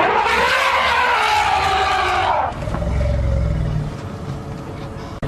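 An African elephant trumpeting loudly for about two and a half seconds, a shrill, brassy call that stops sharply: the trumpet of an upset, agitated elephant harassing wild dogs. A low rumble follows for a second or so.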